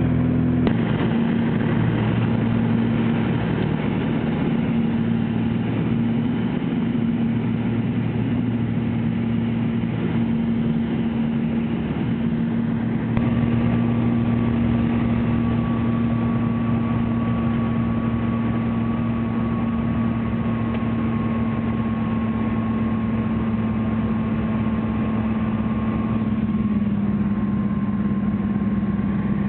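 Steady engine drone heard from inside a small aircraft cabin, with a constant low hum; a thin high whine joins about halfway through.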